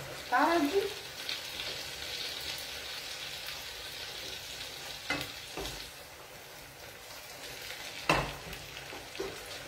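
Asparagus risotto sizzling in a frying pan on a gas hob as it cooks in broth, stirred with a wooden spoon. A short squeak comes in the first second, and the spoon or pan knocks a few times later on.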